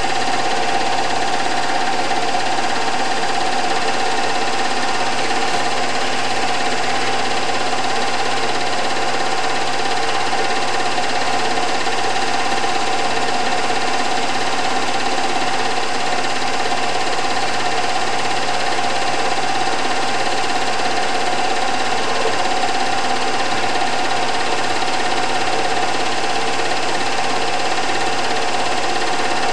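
Film projector running: a steady mechanical whirr and clatter with a constant hum, unchanging throughout.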